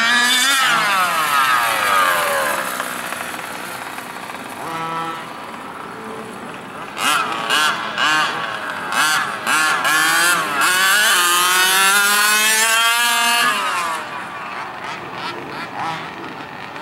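Two-stroke gas engine of a 1/5-scale HPI Baja 5SC RC truck revving as it is driven, its pitch falling as it passes within the first two seconds. From about seven seconds in come quick throttle blips and then a long high rev that drops off at about fourteen seconds.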